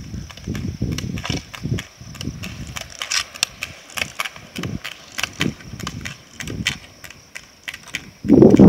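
Roller ski pole tips clicking sharply on asphalt, thickest as the skier passes close by, over a low irregular rumble of wind on the microphone and a steady high insect drone. A louder low thump comes near the end.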